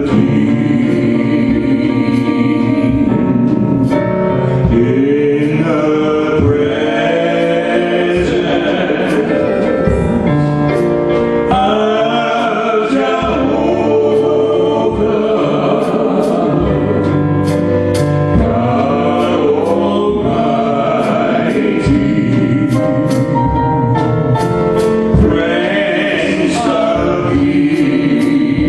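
Gospel worship song: a choir singing over instrumental accompaniment.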